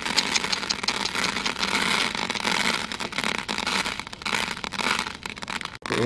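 Dry rice grains sprinkled from a hand onto a cardboard disc. There is a quick run of light ticks in the first second, then scattered ticks over a steady hiss.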